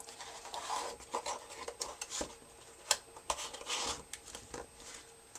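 Small cardboard box being closed by hand, a foam insert pushed down inside it: uneven cardboard rubbing and scraping with a few sharp clicks.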